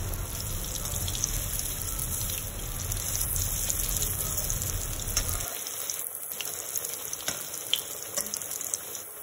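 Besan-battered potato balls (aloo bade) sizzling as they deep-fry in hot oil in a kadhai: a steady hiss, with scattered small crackles in the second half.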